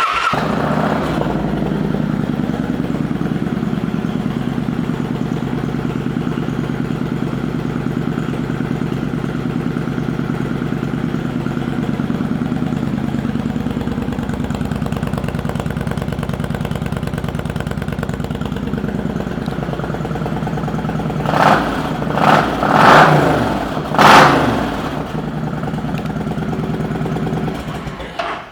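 2007 Kawasaki Vulcan 900 Classic V-twin, fitted with chromed long shot exhaust pipes, idling steadily just after starting. A little past twenty seconds in it is blipped four times, then it is shut off near the end.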